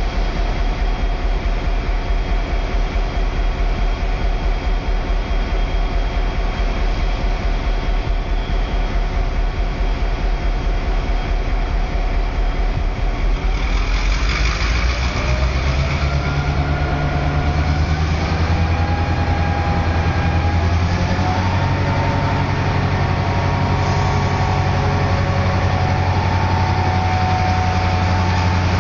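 EMD G16 diesel-electric locomotive's two-stroke, Roots-blown 16-cylinder EMD 567 engine running with a low, pulsing beat, then about halfway through throttling up: its whine rises in pitch and it settles into a loud, steady run under higher power.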